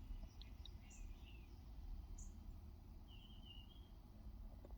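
Near silence: a low steady rumble of room noise, with a few faint, short bird chirps scattered through it.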